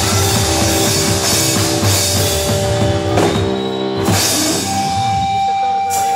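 Rock music with a drum kit and guitar, ending on one long held note.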